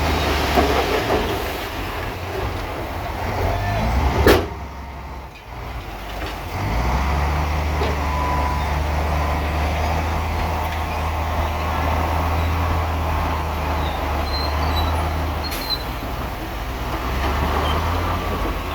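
Diesel engine of heavy earthmoving machinery running steadily. About four seconds in comes a single sharp crack, after which the sound drops away for about two seconds before the engine returns.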